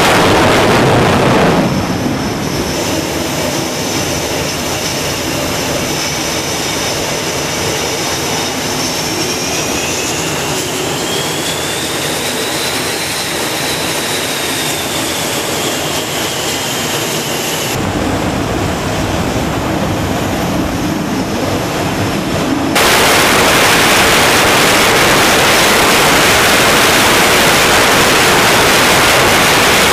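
F/A-18 jet engines running on a carrier flight deck, with a high whine that rises and then falls in pitch. A loud, steady rushing noise with no tone in it sits at the start and cuts back in abruptly near the end.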